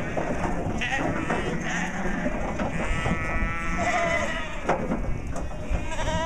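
Sheep bleating, several calls in a row, some of them long and wavering, with a few short knocks in between.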